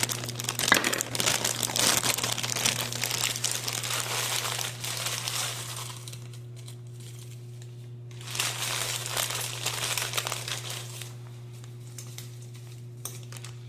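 Plastic bag of frozen mixed vegetables being opened and handled, crinkling in two spells with quieter pauses between, over a steady low hum.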